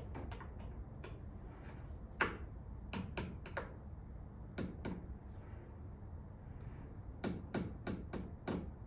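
Scattered light clicks and taps of a metal center punch and tools being handled and set in place on the car body, a dozen or so short knocks with gaps between them.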